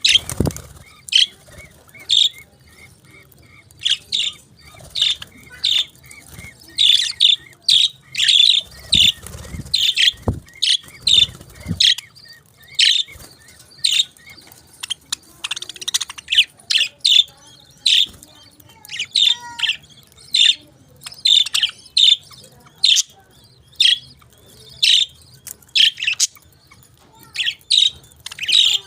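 Pet parakeets chirping: many short, sharp, high chirps in quick, irregular succession, with a few dull low knocks or rustles near the start and about a third of the way in.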